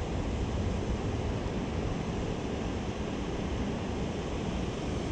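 Steady rushing of fast river water.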